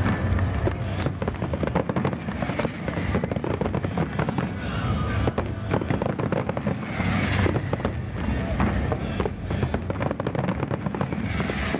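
Fireworks display: a continuous, rapid crackling and popping of many shells and effects bursting at once, over a steady low rumble.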